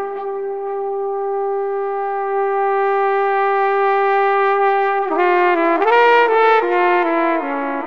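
Music played on a brass instrument. It holds one long steady note for about five seconds, then plays a quick run of shorter notes.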